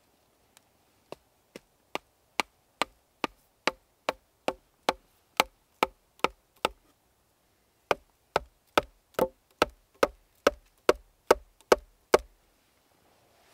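Wood being struck by a hand tool in steady, evenly spaced blows, about two and a half a second. The blows start faint and grow loud over the first two seconds. They pause for about a second midway, then carry on before stopping short of the end.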